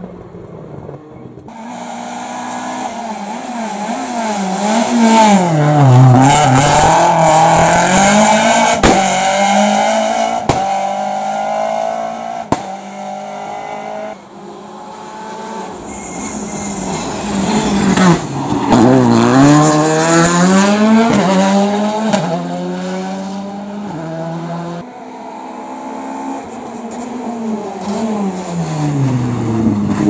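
Rally cars driven hard through mountain hairpins, among them a Škoda Fabia R5: engines revving up and dropping through gear changes, with sharp cracks and tyre squeal in the loudest stretches. The cars follow one another, and a new one comes in about halfway through and again near the end.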